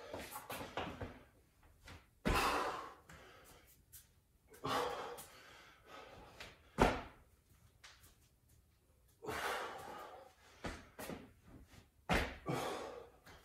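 A person's sneakers landing on a wooden floor during repeated broad jumps to sprawl: about five heavy thuds, two to three seconds apart, each followed by a brief scuffle as the body drops down to the floor and springs back up.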